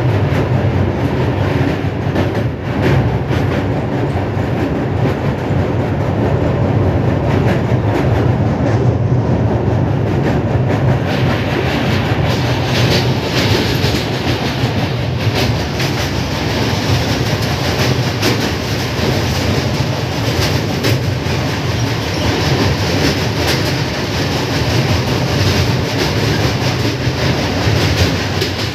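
Passenger train running at speed, heard from inside a coach: a steady loud rumble of wheels on rails with the repeated clickety-clack of wheels over rail joints as it crosses a steel truss river bridge. The noise grows brighter and hissier about eleven seconds in.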